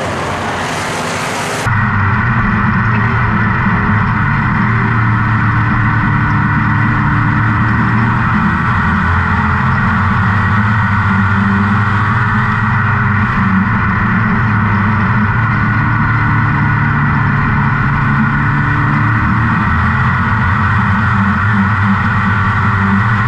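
Dirt-track race car engine heard from inside the cockpit, running hard, its pitch rising and falling every few seconds through the laps. For the first second or two it is instead the noisier wash of cars on the track heard from the grandstand.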